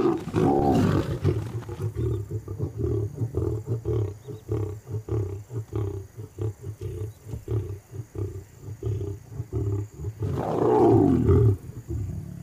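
A male lion snarling as he lunges at a lioness, then growling in a run of low pulses of a few a second while he guards a buffalo kill, with another loud snarl near the end.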